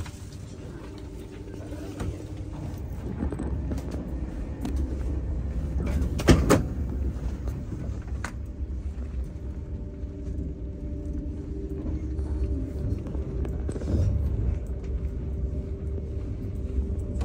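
A moving vehicle running with a steady low rumble, with a single sharp knock about six seconds in.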